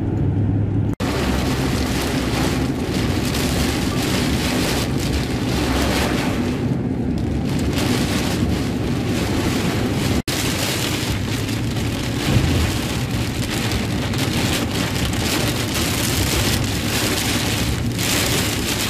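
Heavy rain pelting a car's roof and windshield, heard from inside the car, over the low rumble of engine and tyres on the wet road. The sound cuts out for an instant about a second in and again about ten seconds in.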